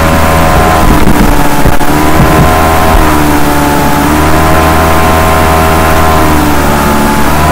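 A motor running steadily, its pitch sagging and rising every second or two, over a constant low hum.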